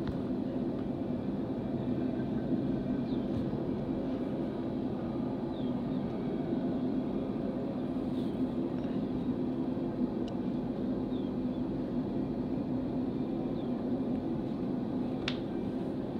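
BNSF coal train's freight cars rolling past in a steady rumble, with a few faint bird chirps over it and one sharp click near the end.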